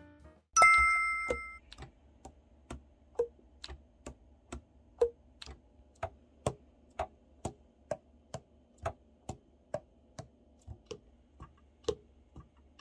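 A bright bell-like ding rings out about half a second in. It is followed by a steady run of short, light clicks, about two a second, over a faint low hum.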